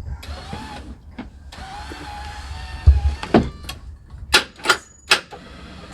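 Electric motor of a 6-way power seat base whirring as the driver's seat moves. There is a low thump about three seconds in, followed by a few sharp clicks or knocks.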